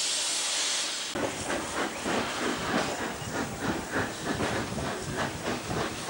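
Steam locomotive hissing steam, then after about a second a sudden change to a steady rhythm of loud exhaust beats, about three a second, as it moves slowly with steam escaping near the wheels.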